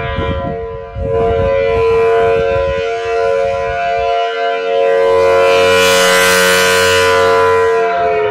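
Federal Signal Thunderbolt outdoor warning siren sounding a steady wail during a test, its pitch starting to fall just before the end as it begins to wind down.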